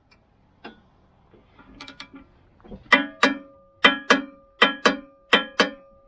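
Click-type torque wrench tightening a stump grinder cutter-tooth nut to 160 foot-pounds: a few light ratchet clicks, then four sharp double clicks as the wrench breaks over at its set torque. Several of the clicks leave a brief metallic ring.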